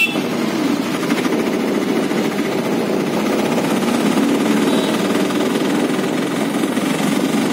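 Engine of the vehicle being ridden in, running steadily along the road with a rapid, even pulsing.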